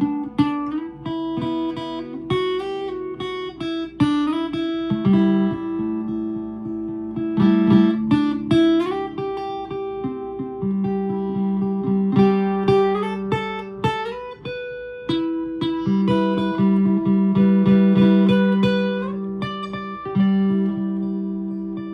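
Solo guitar improvisation: plucked single notes and chords ringing over sustained low notes, with occasional strums.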